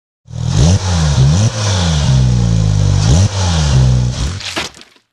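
JP800 buggy engine revving up and down several times, its pitch rising and falling again and again. It cuts off just before the end.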